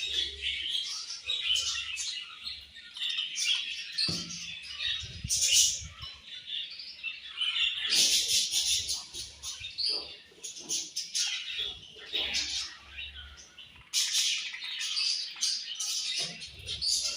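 A colony of budgerigars chirping and chattering, many short overlapping calls at once, with no pauses.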